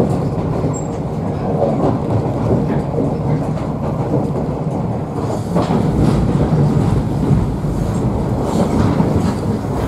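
Echizen Railway electric train running along the line, heard from inside the passenger car: a steady rumble of wheels and running gear that grows a little louder about five and a half seconds in.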